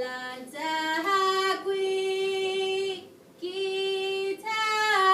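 Women chanting a Chamorro chant (lålai), singing long held notes that step up and down in pitch, with a short pause for breath about three seconds in.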